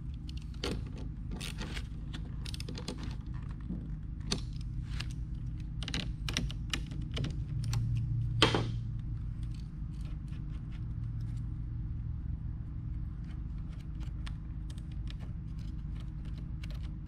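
Small clicks and metallic clinks of hands fitting battery-monitor leads and terminal hardware at a car battery, over a steady low hum. One louder click a little past halfway.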